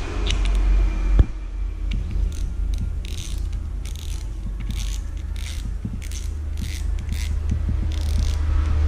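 Spool drag clicker of an Indigo Madai 1000 spinning reel ratcheting as the spool is turned by hand, in short bursts of clicks about once a second. A single sharp knock comes about a second in.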